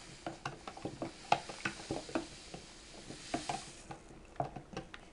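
Stirring in a plastic tub of water with a metal utensil: quick, irregular clicks and taps against the tub. Packet jelly powder pours in with a soft hiss from about a second and a half in until nearly four seconds.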